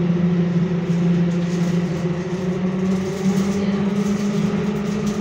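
Copenhagen Metro train running through a tunnel, heard from inside the carriage: a steady drone over a low rumble. The drone steps slightly higher about three seconds in.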